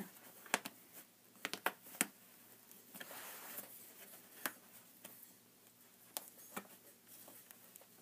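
Quiet handling of woven fabric strips and straight pins: soft fabric rustling with a scattering of light clicks, about seven, as pins are pulled out and pushed back in.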